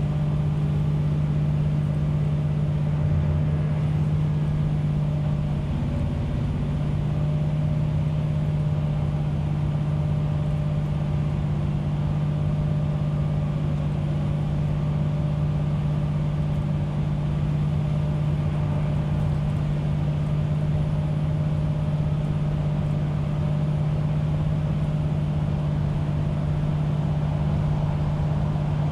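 Diesel railcar engine running steadily with a constant low drone, no clear change in pitch or speed. The recording is overloaded and distorted by a microphone set too hot for the loud surroundings.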